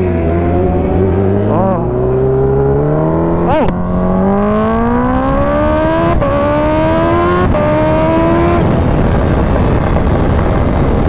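Supercharged 998 cc inline-four of a 2016 Kawasaki Ninja H2 with a Competition Werkes exhaust, accelerating hard from a stop. Its note climbs in pitch through the gears, with three quick breaks at the upshifts about three and a half, six and seven and a half seconds in. After about eight and a half seconds the engine note gives way to steady wind rush.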